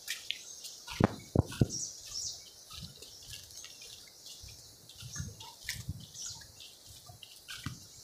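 Small birds chirping over a steady high hiss of forest ambience. A few low thuds come about a second in, with softer ones later.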